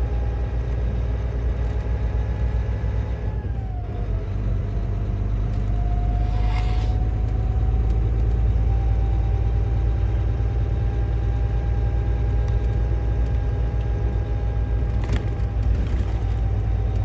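Semi truck's diesel engine heard from inside the cab while driving: a steady low rumble with a whine that drops in pitch about three and a half seconds in, then slowly rises again. A short hiss comes about six and a half seconds in.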